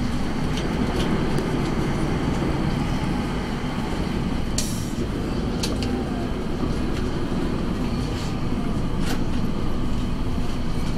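A tram running along its rails, heard from inside the car: a steady rumble of wheels and running gear, with a few short sharp clicks now and then.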